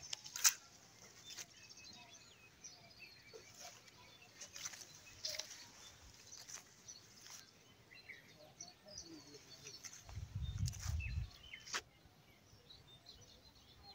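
Quiet outdoor ambience with scattered bird chirps and a few sharp clicks, and a short low rumble on the microphone about ten seconds in.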